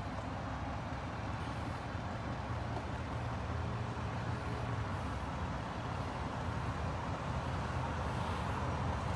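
Duramax 6.6 L V8 turbo-diesel idling with a steady low hum, growing a little louder toward the end.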